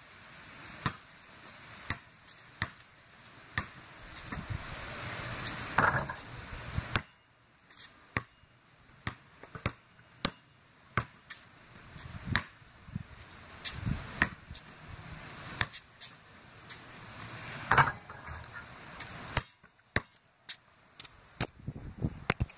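A basketball being dribbled on a concrete driveway, with sharp bounces about once a second at first, then quicker, uneven runs of bounces. A rushing noise swells over the first several seconds and cuts off abruptly about seven seconds in.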